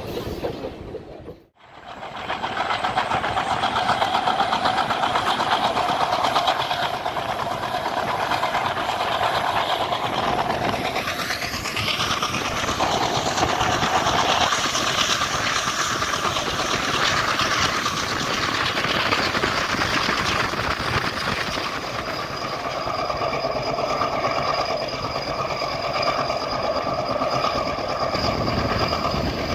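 Passenger train running at speed, heard from an open coach door: a steady rush of wheels on rail with wind noise. The sound drops out for a moment about a second and a half in, then comes back at full level.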